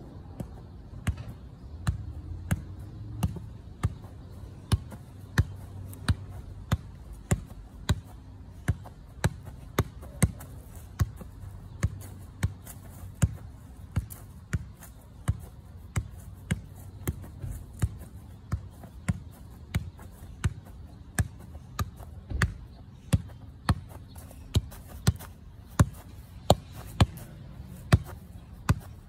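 Soccer ball being juggled: a steady run of sharp thuds as it is kicked up again and again, about three touches every two seconds.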